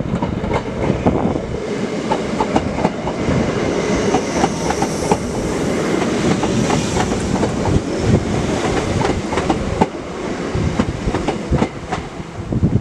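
Class 319 electric multiple unit passing along the platform without stopping: a steady rumble of wheels on rail with a quick run of clicks over the rail joints. The sound eases a little near the end as the train draws away.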